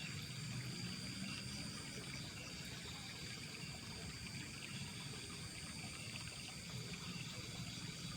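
Steady night insect drone, a high thin hum that holds unchanged, over a faint low murmur with a trickle of water; no sudden splashes or knocks.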